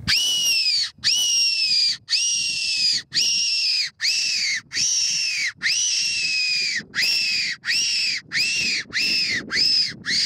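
Tenterfield-type fox whistle blown by mouth in a string of about fourteen loud, shrill notes. Each note dips slightly in pitch at its end, and the notes come shorter and quicker toward the end. It is blown as a call to lure foxes in.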